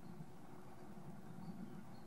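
Faint, steady low background rumble with no pecking or drumming strokes. A few very faint, short high peeps come through about one and a half seconds in and near the end.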